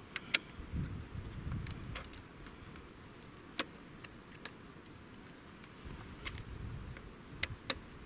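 Faint outdoor ambience: a high insect chirp repeating several times a second, with scattered sharp clicks and soft low rumbles.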